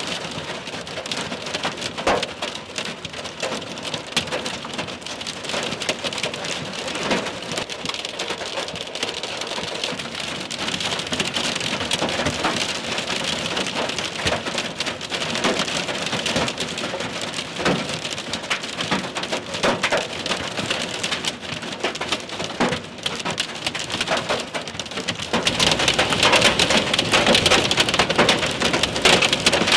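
Heavy rain with hail hitting the roof and windows of a truck, heard from inside the cab: a dense hiss studded with sharp individual hits. It grows heavier and louder about 25 seconds in.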